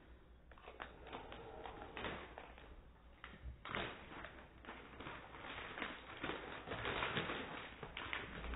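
A man's breath drawn in noisily through an open mouth, with wet clicking, slowed down; it gets much louder about three and a half seconds in.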